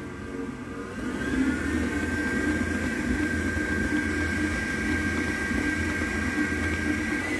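Electric mixer motor running while it kneads pizza dough; about a second in it gets louder and its whine rises, then holds steady.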